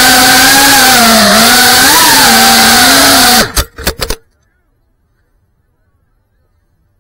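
FPV drone's motors buzzing loudly, the pitch wavering up and down with the throttle. About three and a half seconds in, a few sharp knocks as the drone crashes into the rock, and the motor sound cuts off suddenly.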